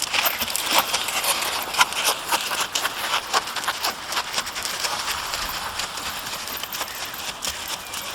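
Hoofbeats of gaited Rocky Mountain Horses being ridden: a run of quick, uneven hoof strikes.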